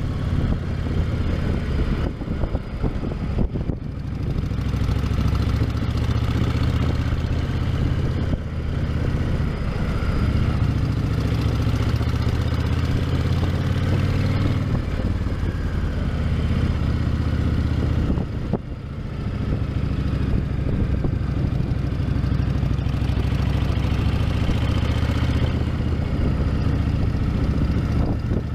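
Honda VTX 1300's V-twin engine running through its stock exhausts, mostly at a steady idle. The sound dips briefly about three seconds in and again a little past halfway.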